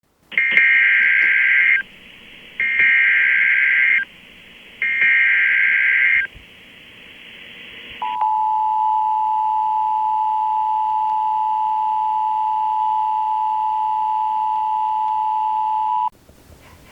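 Emergency Alert System opening tones. Three bursts of the SAME digital header, each about a second and a half long, are followed by the steady two-tone attention signal, which holds for about eight seconds and then cuts off abruptly, leading into a spoken weather warning.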